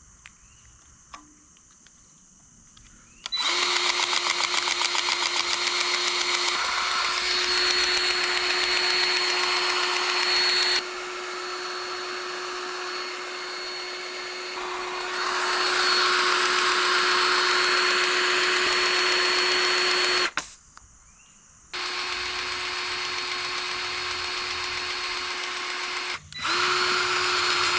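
Battery-powered grease gun's electric motor pumping grease with a steady whine. It runs for about seventeen seconds, dipping and rising in level partway through, stops, then runs again for about four seconds and once more briefly near the end.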